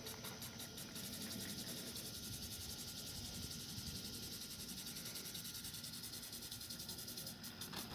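Insects trilling in a high chorus, pulsing about six times a second, then holding steady through the middle and pulsing again near the end, over a low rumble of wind or handling noise.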